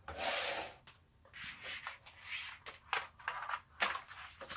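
Box contents being handled during unboxing: a short rustle of packaging, then several brief rubs and light knocks of small parts being taken out.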